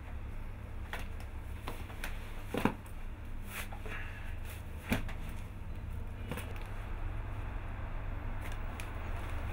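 Rustling and handling sounds of a person putting on and lacing a lace-up boot: scattered light clicks, with two sharper knocks about two and a half and five seconds in, over a steady low hum.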